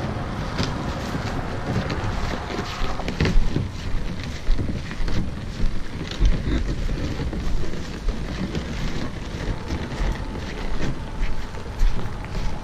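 Wind buffeting the microphone, with irregular crunches and scrapes as the Ultraskiff 360 round boat's hull rolls on its edge over sand and gravel and feet shuffle alongside.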